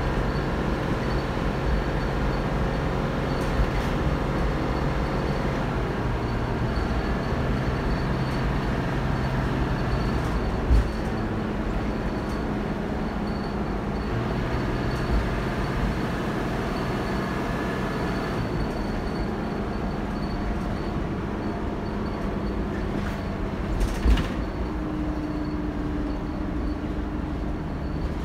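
Dennis Dart SLF single-deck bus under way, heard from inside the saloon: its diesel engine and Allison AT545 automatic gearbox being driven hard, with road noise and body rattles. The engine note changes pitch several times. There are two sharp knocks, one about 11 seconds in and one about 24 seconds in.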